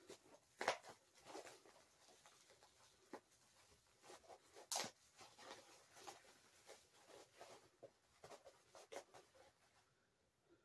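Faint, irregular rustling and scratching of packaging being opened by hand, with a sharper crinkle about a second in and another near the middle.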